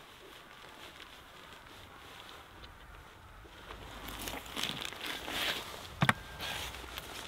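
Quiet at first, then from about four seconds in a person getting up off an ice-fishing bucket: clothing rustling and boots scuffing on the ice, with one sharp knock about six seconds in.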